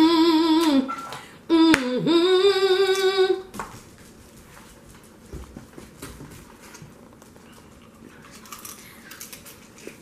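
A woman humming "mmm" in enjoyment of the food: two long hums with a wavering pitch, the second ending about three and a half seconds in. After that, only faint small clicks of crab shells being picked apart.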